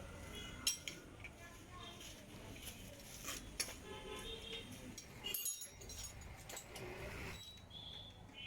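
Metal tools and engine parts clinking and knocking during hands-on motorcycle engine reassembly, with several sharp clinks scattered through, over faint background voices.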